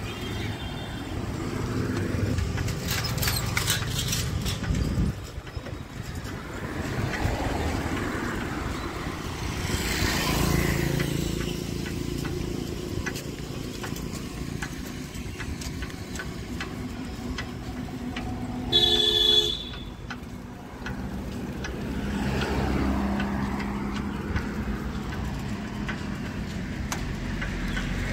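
Street traffic with vehicles passing, rising and falling in waves. One short vehicle horn toot about two-thirds of the way through is the loudest sound.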